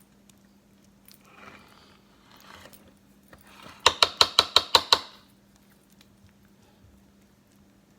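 A kitchen utensil rapped quickly against the rim of a pot or dish: about eight sharp metallic taps in about a second, loud and ringing. Soft scraping comes before it.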